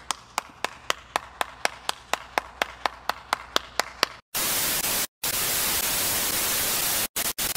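One person clapping slowly and steadily, about four claps a second. About four seconds in it cuts to loud TV static hiss, broken by a few brief dropouts near the end.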